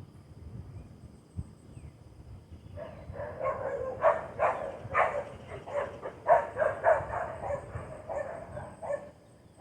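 A bird's loud, harsh calls given in a rapid run of short notes, starting about three seconds in and stopping shortly before the end.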